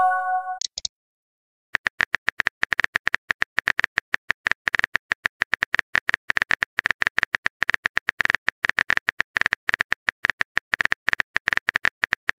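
Smartphone keyboard typing sound effect: rapid, irregular clicks for about ten seconds, after a short chime of an incoming message at the very start.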